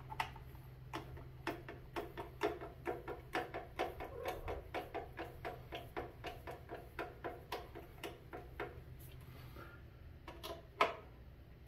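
Screwdriver tightening a self-tapping metal screw through the grill lid's handle into plastic: a faint run of light clicks, about three or four a second, that stops about nine seconds in, then a couple more clicks near the end.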